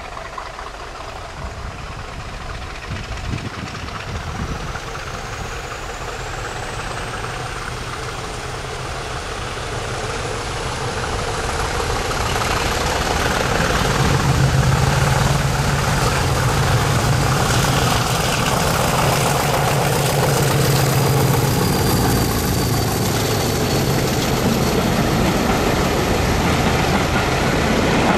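Diesel train engine working under power, growing louder over about ten seconds and then holding a strong steady engine note. A high whine rises steadily in pitch through much of it.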